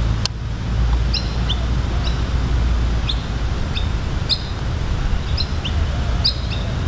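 Small birds chirping, a dozen or so short high calls scattered throughout, over a steady low rumble, with one sharp click just after the start.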